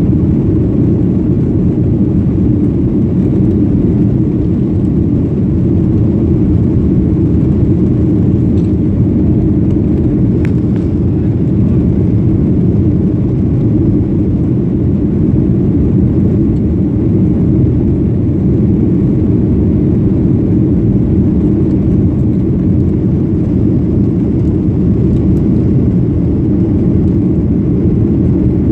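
Steady loud rumble of a Boeing 737-800's twin CFM56-7B26 turbofans and the rushing air, heard inside the passenger cabin during the climb after takeoff.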